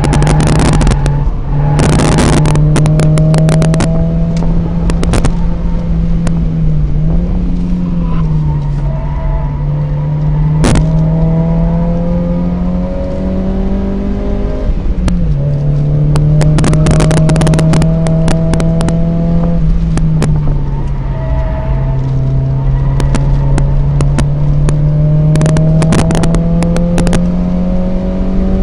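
Mazda MX-5 NA 1.8's four-cylinder engine pulling hard on track, heard from inside the cabin. Its pitch climbs slowly and drops sharply twice, about halfway and about two-thirds through, with clusters of clicks and rattles coming and going.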